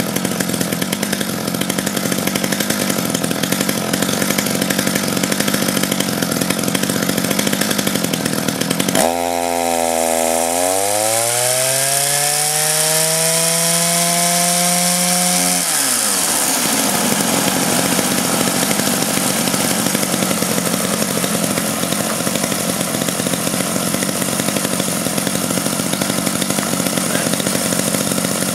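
Combat robot's spinning disc weapon running with a loud, steady buzz. About nine seconds in, a pitched whine climbs steadily for about six seconds as it speeds up, then falls away quickly, leaving a hissy rushing noise.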